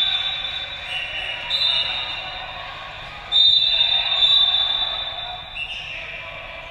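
Players' shouts and calls during a dodgeball game, echoing in a large sports hall, in several separate outbursts a second or two apart.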